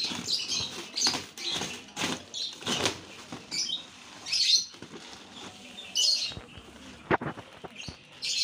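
Rustling, crinkling and a few knocks from a carton of bagged aquarium fish being unpacked and handled, coming in short bursts about once a second, with small birds chirping in the background.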